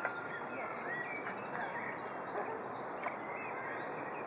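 Songbirds chirping with many short whistled calls over a steady background hiss.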